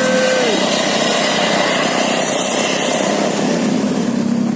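A tour bus's engine running close by, loud and steady. About half a second in, a held musical horn note ends with a short downward slide.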